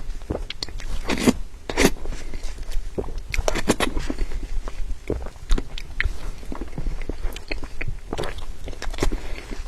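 Close-miked chewing of soft cream cake: soft chewy mouth sounds, made of many short clicks and smacks that come in little clusters.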